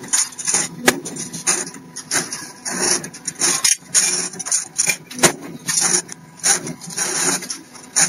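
PD5-12 CNC stirrup bending machine running and working steel bar, with irregular sharp knocks and bursts of hiss and clatter about once or twice a second.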